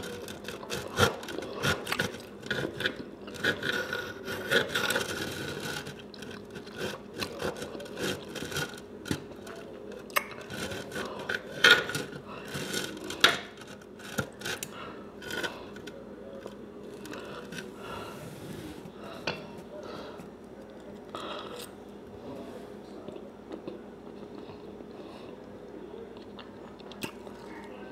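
Knife and fork scraping and clicking against the dish while cutting through a breaded country fried steak, with two loud clacks about halfway through; the strokes grow sparser in the second half.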